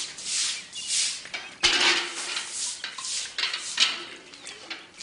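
A straw broom swept in repeated swishing strokes over a wet stone floor during floor washing, with a metal pail knocking and clattering; the loudest stroke, opening with a knock, comes about a second and a half in.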